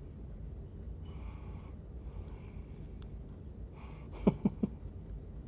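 Breathing through the nose close to the microphone, a soft breath every second or two. About four seconds in come three quick soft knocks or clicks in a row from the hands handling the taped wires.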